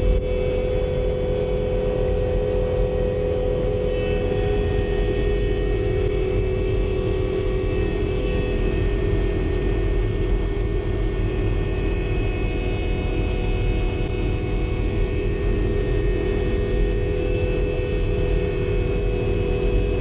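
Case TV450 compact track loader's diesel engine and hydraulically driven snow blower attachment running steadily, heard from inside the closed cab as an even drone with a steady hum over a low rumble.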